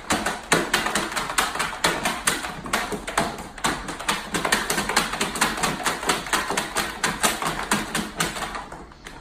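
Puppy's claws scratching and scrabbling at the bottom of a plastic storage bin: rapid, irregular clicks and scrapes on hard plastic, about five a second, fading near the end.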